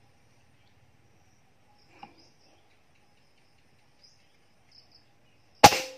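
Faint insect chirping, then near the end a single loud, sharp air rifle shot with a brief ring-off.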